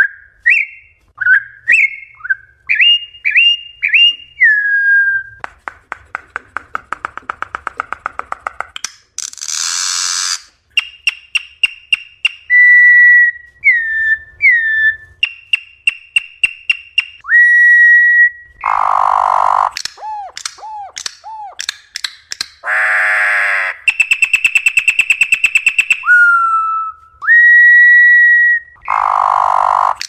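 Corrupião (campo troupial) singing a long, varied wild song: clear whistled notes and slurred glides mixed with rapid trills, harsh churring bursts and buzzy rattles.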